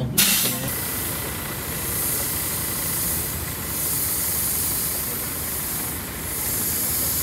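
Large tour bus idling close by: a steady engine rumble under an even hiss, with a faint thin whine.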